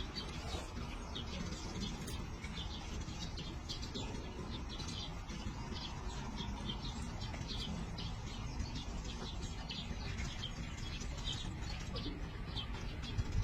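Small birds chirping, many short high calls a few times a second, over a steady low rumble.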